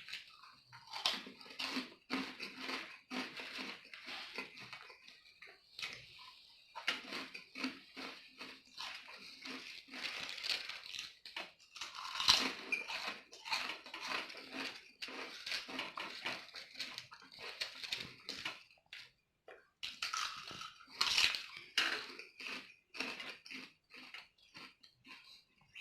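Close-miked crunching and chewing of spicy potato chips: quick, irregular crisp crunches that go on and on, with brief lulls about six and twenty seconds in.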